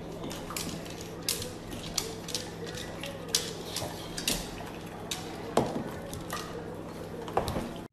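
Irregular sharp clicks and light clattering knocks, about a dozen, over a steady low hum.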